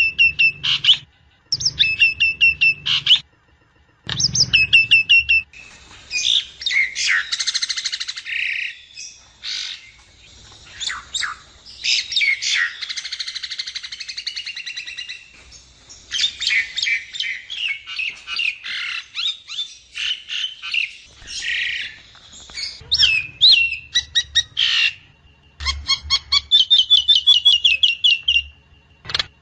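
Jalak nias myna singing a long, varied song of rapid chattering trills, squawks and whistled notes, with short phrases repeated several times near the start and again near the end. This is a lure recording ("pancingan") used to get a kept myna to open up and sing.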